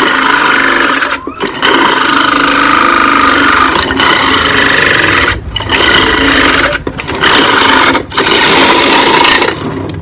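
Single-blade electric ice crusher running under load, grinding and shaving ice as the lid is pressed down. It is a loud, continuous grinding, broken only by a few split-second dips, and the crushing keeps going rather than stalling. It dies down just before the end.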